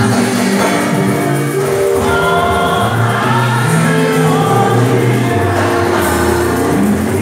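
Gospel worship song sung by a group of singers on microphones in harmony, with a live band and drum kit playing along.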